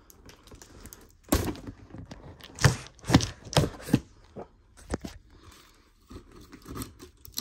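Cardboard box being handled and opened: irregular thuds and knocks, with some tearing.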